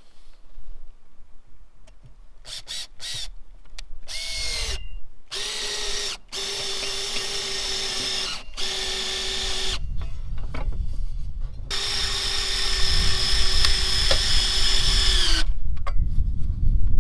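Cordless drill fastening a metal antenna mounting bracket to a wooden post: a few short trigger blips, then several runs of steady motor whine with short pauses between, the longest near the end. About four seconds in, the whine sinks in pitch as the drill takes the load.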